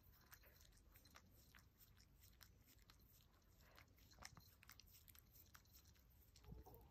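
Chihuahua licking a person's forehead: faint, irregular wet clicks and smacks of its tongue, very quiet overall.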